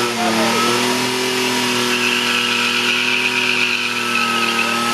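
Holden VN Commodore held at high revs in a burnout, its rear tyres spinning against the track. The engine note dips briefly at the start, then holds steady, and a harsher hissing squeal from the tyres joins in for a couple of seconds in the middle.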